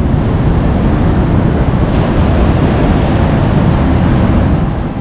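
Atlantic surf rushing on the beach, with wind buffeting the microphone: a loud, steady rushing noise.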